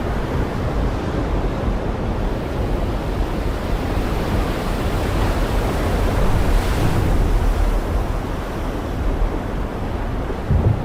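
Heavy rain falling in a steady, dense hiss with a deep low rumble under it.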